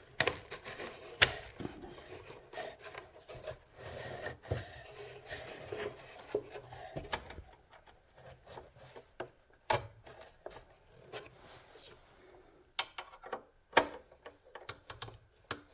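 Hand-work on power supply wiring: scattered sharp clicks and knocks of a screwdriver, screws and parts, with rubbing and scraping between them, busiest in the first half.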